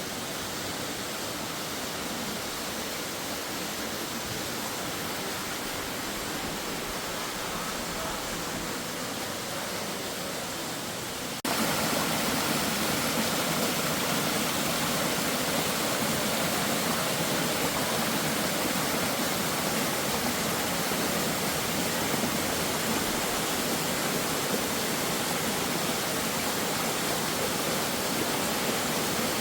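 Waterfall rushing, a steady, even roar of falling water that jumps suddenly louder about a third of the way through.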